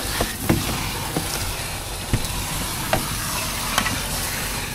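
Hand scraper working over window glass to scrape off stuck-on paint and cement: a steady gritty rasp with a sharp click now and then as the blade catches or strikes.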